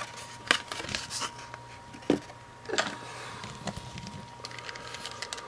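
Hands handling a die-cast toy monster truck and its card-and-plastic package: scattered clicks, knocks and rustling.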